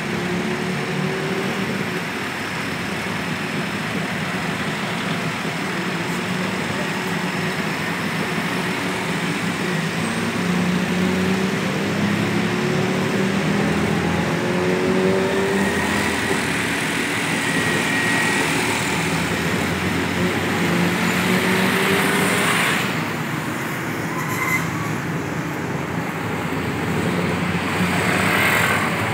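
A truck's engine running on the move, its pitch climbing again and again as it speeds up through the gears, over steady tyre and wind noise and the traffic close behind, heard from the open back of the truck. Near the end a scooter passes close by.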